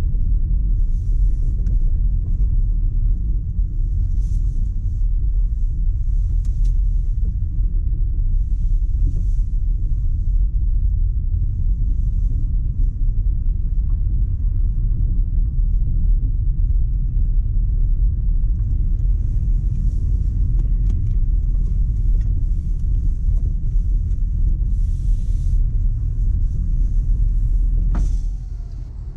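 Steady low rumble and road noise of a car driving, which drops suddenly near the end.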